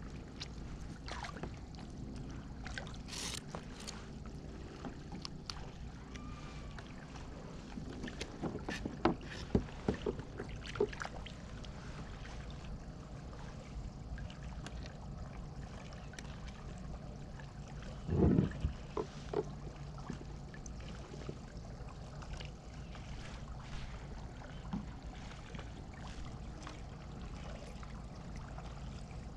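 Small boat on the water with a steady low rumble and scattered knocks and clatter, a cluster of them about eight to eleven seconds in and the loudest knock about eighteen seconds in.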